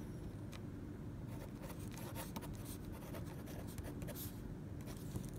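Pen writing on paper: a run of short, irregular scratchy strokes as letters and numbers are written by hand, over a low steady background hum.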